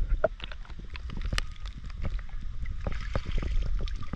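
Muffled underwater rumble with scattered knocks and clicks as a landing net is swept through shallow seawater over rocks and weed. Near the end the net is lifted out, and water splashes and drains from its mesh.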